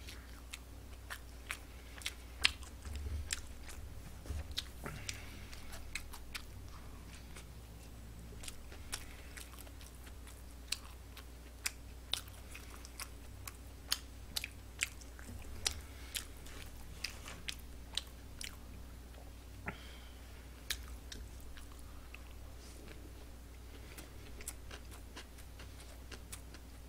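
Close-miked chewing of a hamburger: soft mashing with irregular sharp wet mouth clicks, about one or two a second.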